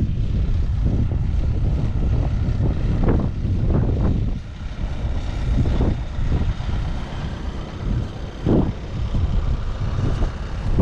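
Wind buffeting the microphone: a heavy, gusting rumble that swells and dips throughout.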